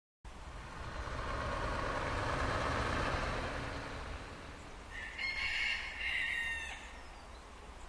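A rooster crows once, about five seconds in, for under two seconds. Before it, a hiss of passing traffic swells and fades.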